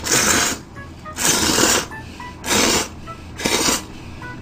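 A person slurping buckwheat soba noodles in four loud, hissy pulls about a second apart.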